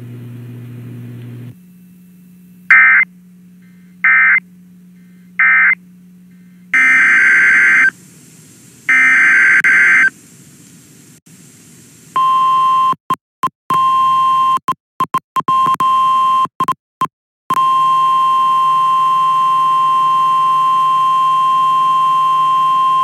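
Emergency Alert System audio from a weather radio: three short screechy SAME data bursts that close the previous warning, two longer data bursts of the next warning's header, then the steady 1050 Hz weather-radio alert tone. The tone cuts in and out several times before holding steady.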